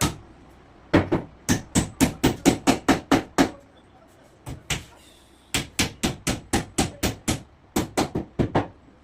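Hammer blows on plywood in quick runs of about four strikes a second, with short pauses between the runs.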